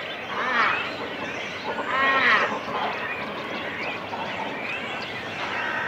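Cormorant colony close up: chicks and adults calling at the nest over a dense, continuous din of other calling birds, with two louder harsh calls about half a second and two seconds in.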